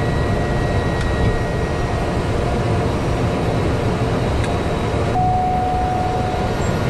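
Steady cockpit noise of a Cessna 208B Grand Caravan's turboprop engine and propeller as the aircraft rolls on the ground after landing. A thin steady tone sounds for just over a second about five seconds in.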